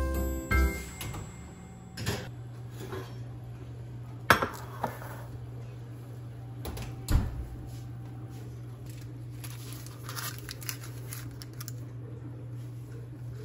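Kitchen clatter from bakeware and dishes being handled: a few scattered knocks and clanks, the loudest about four seconds in, over a steady low hum.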